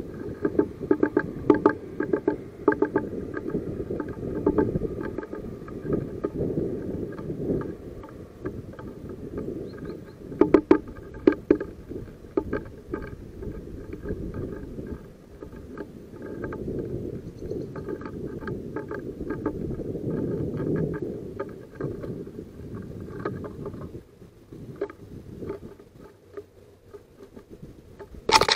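Great tit hammering a seed held under its feet, its beak tapping on the wooden feeder tray in quick runs of taps with pauses between. A low rumble runs underneath, and a louder clatter comes right at the end.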